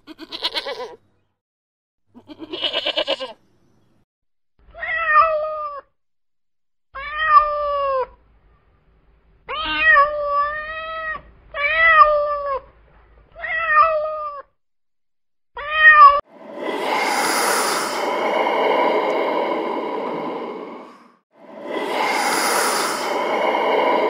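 Two short, quavering goat bleats, then a kitten meowing about seven times, each meow rising and falling in pitch. Near the end come two long, loud rushing breath-like sounds, each lasting about five seconds.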